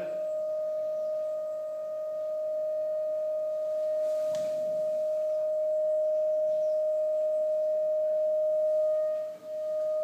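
Steady pure tone from a small loudspeaker driven by a signal generator, sounding through a glass tube whose lower end stands in water. The tube is held at the length where its air column resonates, forming the fundamental standing wave, so the tone is at its loudest. The tone dips briefly near the end.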